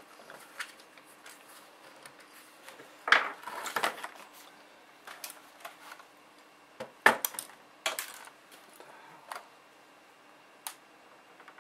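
Scattered sharp clicks and clatters of a small screwdriver and screws against the plastic case of an HP G50 laptop as the keyboard screws are screwed down. The loudest knocks come about three seconds in and again about seven seconds in.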